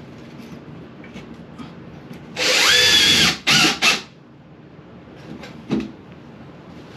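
Power drill driving a screw to secure a bathroom exhaust fan housing: about a second of running with the motor whine rising and falling, then two short bursts as the screw is snugged down.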